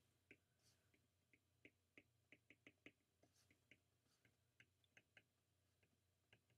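Near silence broken by a dozen or so faint, irregular clicks of a stylus tip tapping a tablet's glass screen during handwriting.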